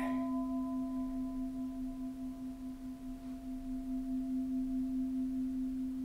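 Bronze Japanese temple bell ringing on after a strike from a wooden striker: a steady low hum with a slow waver, its higher tones dying away first. It rings clean, the sign of a bell with no cracks.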